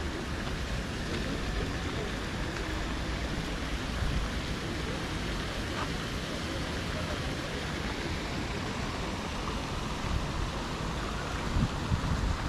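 Steady outdoor street ambience: an even rushing noise with no distinct events.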